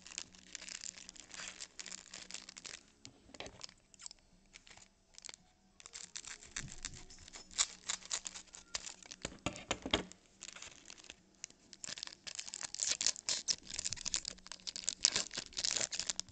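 Foil wrapper of a Topps Chrome baseball card pack crinkling and tearing as it is opened and the cards are pulled out and handled. There is a quieter lull partway through.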